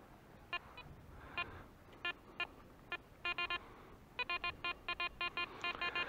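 Metal detector giving short, clear beeps as its coil sweeps over beach sand: a few scattered beeps at first, then quick runs of repeated beeps from about three seconds in as it passes over a target, one that reads 41 on the detector's display.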